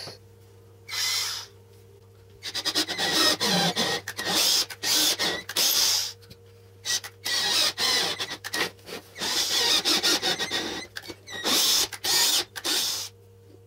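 Cordless drill running in a string of short bursts as it works into the wooden jig block, with a crackling, clicking whir. One short burst comes about a second in, then a run of roughly one-second bursts with brief gaps between them.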